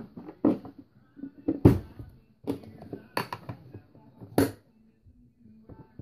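Hard plastic knocks and clicks of the clear dirty-water tank of a Hoover Power Scrub Deluxe carpet cleaner being set back onto its base and pressed into place: about five separate knocks, the sharpest about a second and a half in and again near four and a half seconds.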